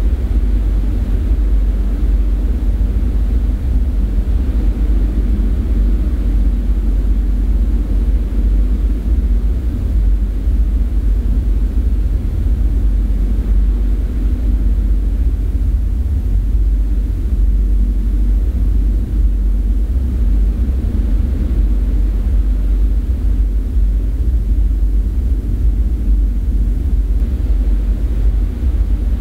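A steady, deep rumbling drone, even and unbroken throughout.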